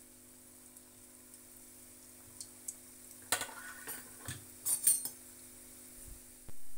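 Metal spoon clinking and scraping against a frying pan while semolina jamun balls fry in oil. It brings a cluster of sharp clinks about halfway through, over a faint, steady background.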